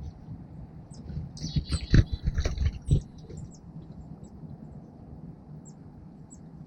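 Small songbirds giving short, high chirps at a hanging bird feeder. About one and a half to three seconds in comes a burst of knocks and scuffling at the feeder, loudest around two and three seconds in.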